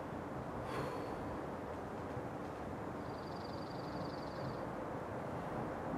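Steady outdoor background noise, with no shot fired. A faint sharp click comes about a second in, and a faint, rapid high-pitched trill, like a small bird's, runs for about a second and a half near the middle.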